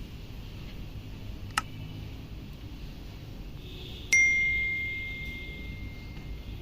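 A short click, then about two and a half seconds later a single bright bell-like ding that rings on as one clear tone and slowly fades.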